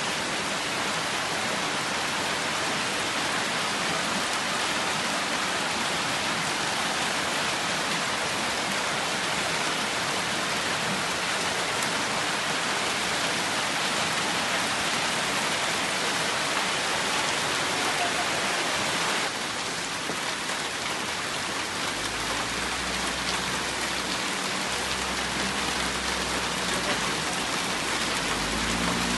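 Heavy rain pouring onto a street, a dense steady hiss. About two-thirds of the way through, a low rumble joins it.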